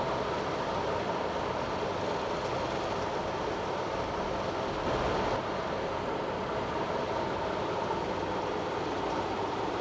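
GE 44-ton switcher locomotive's twin diesel engines idling steadily.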